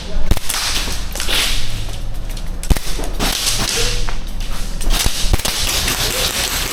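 Airsoft guns firing: sharp single snaps scattered through, amid short rushes of hissing noise.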